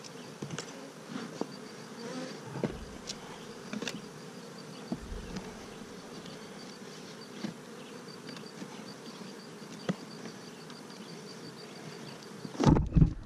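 Honeybees buzzing around an open hive: a steady low hum, with a few light clicks of wooden hive parts being handled. A loud bump and rustle near the end.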